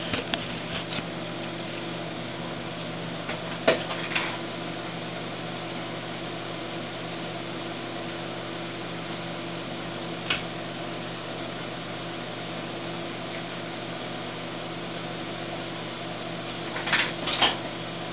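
Steady electrical hum of running equipment with a few steady low tones, broken by scattered clicks and knocks of a camera being set up, the loudest cluster near the end.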